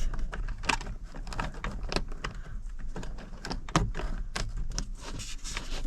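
Irregular small clicks and taps of hands handling small metal parts: quarter-inch washers being fitted onto a momentary switch.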